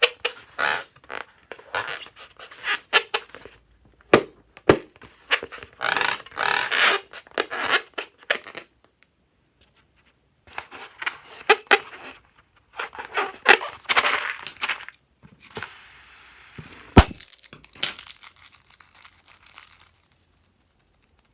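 Slime-making materials being handled: bursts of crinkling and tearing noise, many sharp clicks, and one loud snap about seventeen seconds in.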